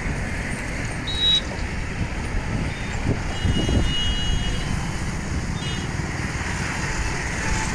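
Steady rumble of road traffic on a bridge, with a few short high-pitched beeps about a second in, between three and four seconds, and near six seconds.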